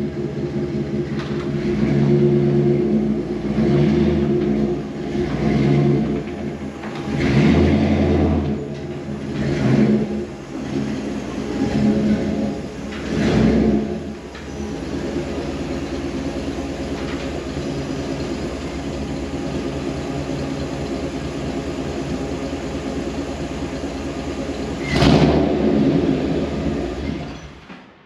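The 1957 Chevy truck's swapped-in 6.0 L LS V8 pulling in at low speed, swelling with several blips of throttle, then idling steadily. Near the end it rises briefly once more and then cuts off.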